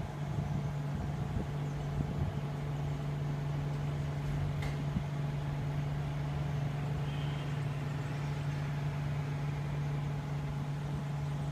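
A steady low mechanical hum holding one unchanging pitch, like a motor or engine running, with a faint click about halfway through.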